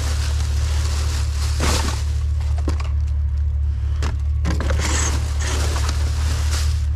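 Rummaging through trash in a dumpster: items rustling and scraping as they are shifted, with a few sharp knocks, over a steady low hum.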